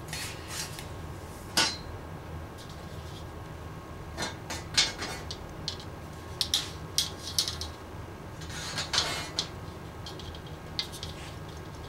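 Light, scattered metallic clinks and taps of a thin metal antenna-element rod and a steel ruler being handled against a bench vise, with a brief scraping rustle about nine seconds in. A low steady hum runs underneath.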